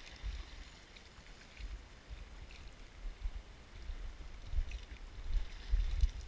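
Wind buffeting the camera microphone in gusts, strongest near the end, with faint splashing from a hooked salmon thrashing at the water's surface.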